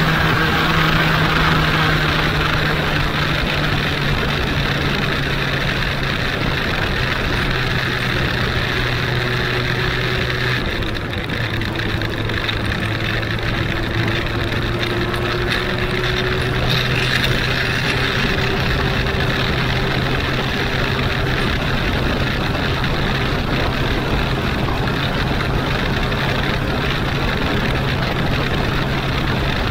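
Benelli Huanglong 600's inline-four engine running under way, with wind and road noise. About ten seconds in the engine note dips, then climbs slowly over the next several seconds as the bike gathers speed.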